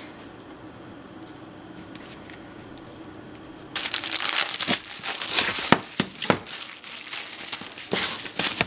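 Plastic packaging of enoki mushrooms crinkling and crackling as a knife cuts through the bag and it is pulled off the mushrooms. It starts suddenly about four seconds in, with many sharp crackles. Before that there is only a quieter low steady hum.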